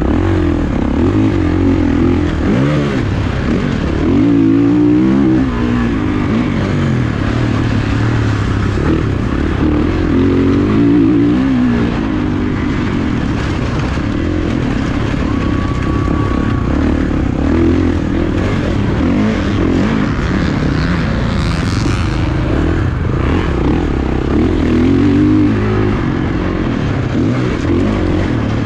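Motocross dirt bike engine being ridden hard, its pitch rising and falling over and over as the throttle is opened and closed through the gears.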